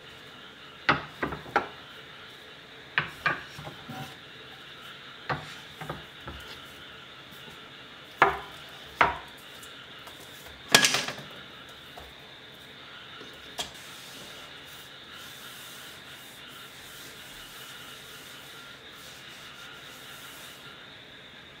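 Wooden cutting boards, a wooden tray and woven straw trivets set down and shifted on a wooden counter: a series of irregular light knocks and rubbing. The loudest knock, with a short scrape, comes about eleven seconds in, and the last several seconds hold only a faint steady background.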